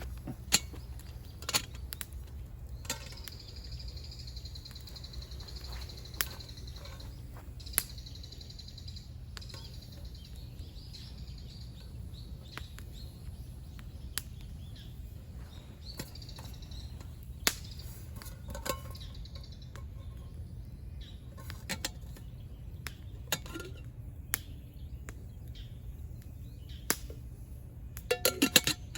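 A small bird singing high, thin notes for several seconds starting about three seconds in, and again briefly later, over a steady low outdoor rumble. Scattered sharp clicks and taps throughout, with a quick cluster near the end.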